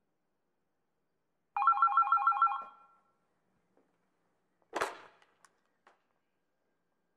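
A short ringing trill like a telephone bell starts about a second and a half in, pulsing rapidly for about a second before fading. Near the five-second mark comes a single sharp hit with a short ring, followed by a couple of faint clicks, with silence in between.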